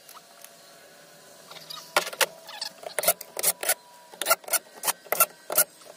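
Metal clinks of hand tools and bolts on an outboard powerhead's cylinder head as the head is bolted down: quiet at first, then from about two seconds in a run of sharp metallic clicks, roughly three a second.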